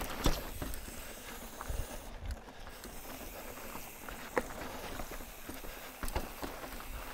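Mountain bike rolling over a rocky dirt trail: tyres crunching on dirt and stone, with scattered sharp knocks and rattles from the bike over rock ledges, the loudest about a quarter second in and about four seconds in. A low rumble of wind runs underneath.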